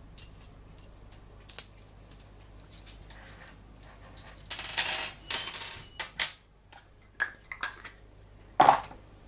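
Metal scope rings clinking as they are handled, with a plastic bag rustling in the middle and a single louder knock near the end.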